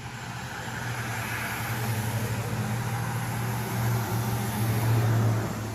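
A road vehicle passing by: its engine and tyre noise build steadily to a peak about five seconds in, then fall away near the end.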